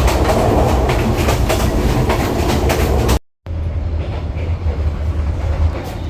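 Sleeper train running on the rails: a steady low rumble with rapid clattering clicks. It cuts off abruptly about three seconds in, then resumes as a quieter stretch of the same running noise.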